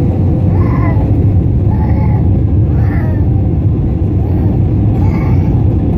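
Airliner cabin noise at a window seat over the wing: a loud, steady rumble of jet engine and airflow. A baby cries in short wails four or five times over it.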